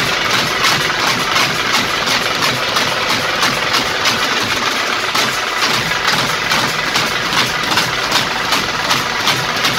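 Tamate drum troupe playing: big bass drums beaten with sticks together with tamate frame drums, a loud, fast, steady beat.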